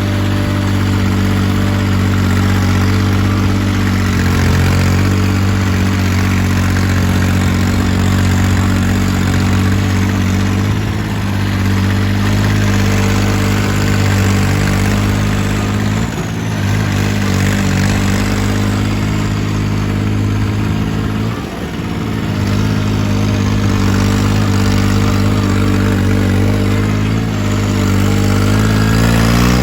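Turbocharged engine of a 655 machine running at steady speed, with its turbo whistling. The engine note dips briefly about halfway through and again a few seconds later.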